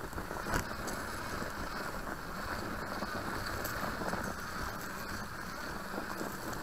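Electric RC crawler truck driving over leaf litter and grass: a steady noise from its motor, gears and tyres, with scattered small knocks.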